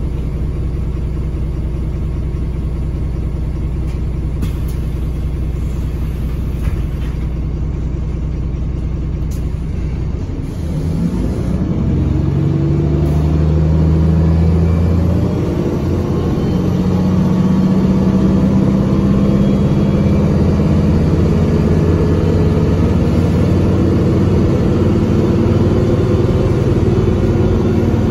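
Iveco Tector six-cylinder diesel of a Heuliez GX117 L city bus, heard from inside the cabin. It runs low and steady, then about ten seconds in it revs up and holds at high revs. The exhaust is holed and the Allison automatic gearbox is stuck in first gear.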